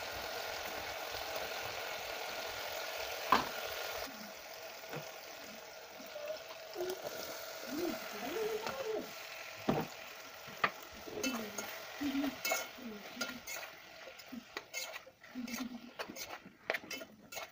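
Chopped tomatoes sizzling in oil in an aluminium pot while a spoon stirs them. The sizzle drops about four seconds in; diced potatoes are tipped in and stirred, with the spoon clinking and scraping against the pot more and more often near the end.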